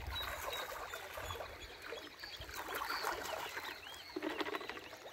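Small birds chirping: many short, scattered calls, over faint clicks and rustling.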